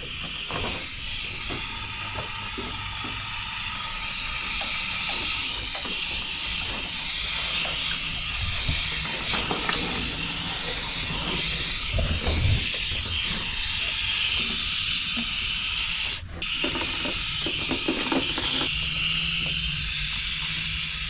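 Water spraying from a trigger nozzle on a garden hose as plants are watered, a steady hiss. The spray stops for a moment about three-quarters of the way through.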